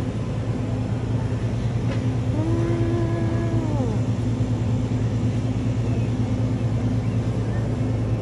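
Steady low machine hum of a supermarket, heard beside a refrigerated deli display case. About two and a half seconds in, a short held tone sounds for a second and a half and drops away.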